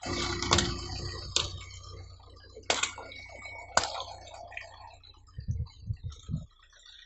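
Water balloons bursting one after another under a slowly rolling car tyre: about four sharp pops roughly a second apart, over a fine crackle of grit and beads crunching under the tread. A few dull knocks follow near the end.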